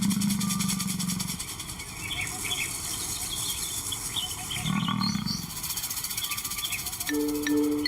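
A male lion calling low, twice: a long call at the start and a shorter one about five seconds in, with small birds chirping between. Music comes in near the end.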